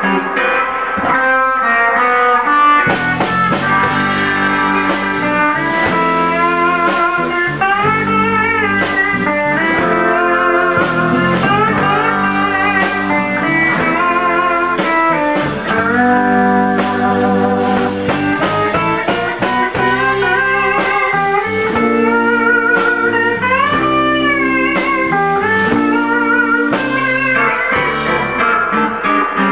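Live instrumental band of electric guitar, pedal steel guitar, bass and drums, with lead lines that bend and waver in vibrato over the band. The bass and drums come in about three seconds in.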